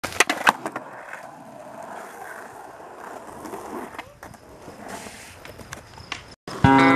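Skateboard wheels rolling over rough concrete, with a few sharp clacks of the board in the first half second and scattered clicks after. Near the end the sound cuts out briefly and loud guitar music begins.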